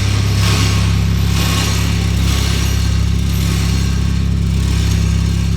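Nissan Silvia S15's four-cylinder engine running steadily, a deep even drone with a hiss above it that swells and fades about once a second.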